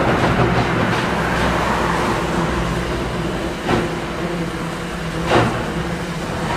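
SY-class 2-8-2 steam locomotive working a long train, a steady rumble with slow exhaust beats. Two sharp chuffs stand out in the second half, about a second and a half apart.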